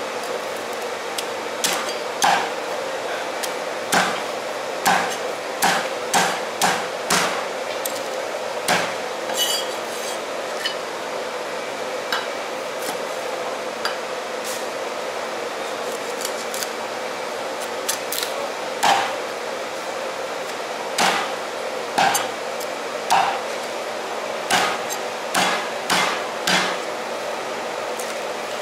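A Chinese cleaver chopping roast duck and its bones on a thick round wooden chopping block. The chops are sharp and irregular, coming in quick runs of several with short pauses, over a steady background hum.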